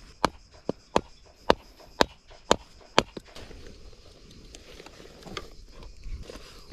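Footsteps on dry ground and undergrowth, sharp and even at about two a second for some three seconds, then quieter rustling and handling of fishing rods in a rod bag.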